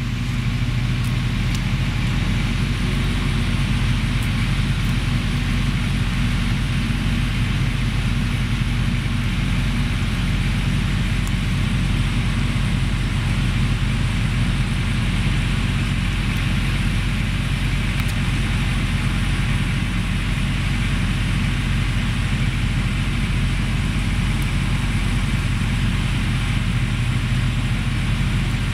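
A steady, unvarying low mechanical hum with a hiss over it, like an engine or machine running, loud enough to bury the cat's chewing.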